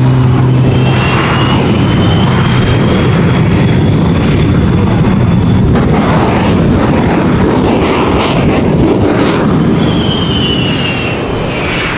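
Shockwave jet truck's jet engines running with a loud, dense roar and a high gliding whine, with a run of sharp bangs in the middle as its flame burners fire.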